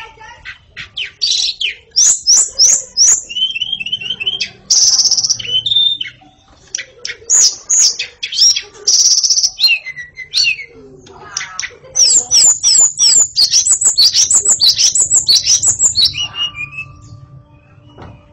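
White-rumped shama (murai batu) in full, nonstop song: a varied string of clear whistled phrases and harsh buzzy notes, with a long, fast run of repeated sweeping notes in the second half.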